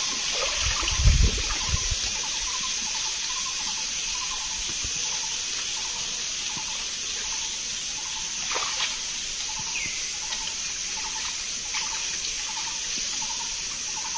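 Steady high hiss with a soft call repeating evenly about every two-thirds of a second, and a low splash of someone wading in shallow water about a second in.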